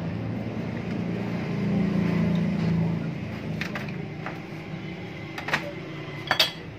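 A steady low mechanical hum, swelling for a second or so about two seconds in, with a handful of sharp metallic clicks in the second half, the loudest near the end, as small metal parts of an opened refrigerator compressor are handled and fitted.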